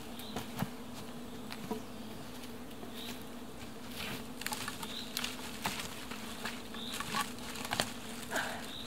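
A steady, buzzing insect hum, with scattered sharp clicks and knocks of sticks and branches being handled and stepped on in the forest litter, and a few short high chirps.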